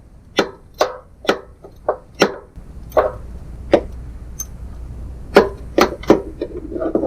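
Steel wrench clinking on a heater's mounting nut as it is tightened by hand from under a van floor: sharp metallic clinks, irregularly about every half second. A low steady rumble sets in about two and a half seconds in.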